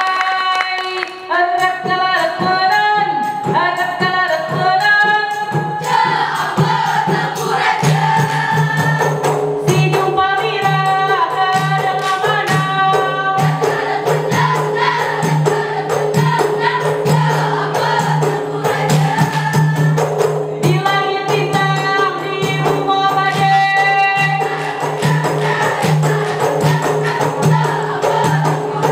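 Ratoh Jaroe dance music: group singing of a melodic chant, with rhythmic hand claps and body slaps from the seated dancers keeping time.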